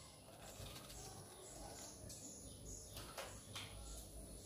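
Near silence: faint room tone, with a few faint high chirps and two brief soft rustles about three seconds in.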